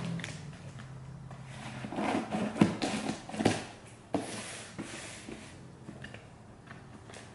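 Hands handling a cardboard shipping box: rubbing and patting over its packing tape, with a few sharp knocks against the cardboard between about two and four seconds in.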